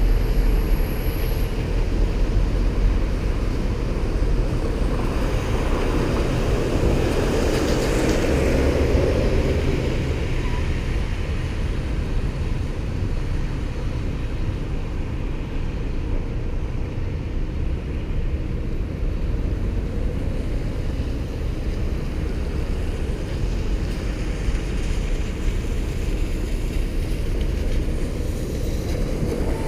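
Wind rushing over the microphone of a camera riding along on a bicycle, a steady low rumbling noise, with a louder swell about a quarter of the way through.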